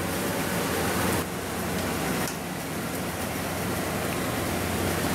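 Steady rushing background noise of a working kitchen, with no distinct clatter or speech.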